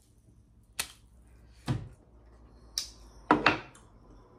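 Crab claw shell being cracked and picked apart for the meat: a few sharp cracks and clicks, the loudest about three seconds in.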